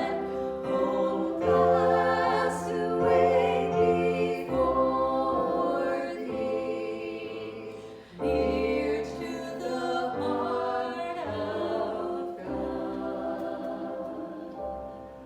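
Choir singing a slow worship song in held, sustained chords; it fades away near the end.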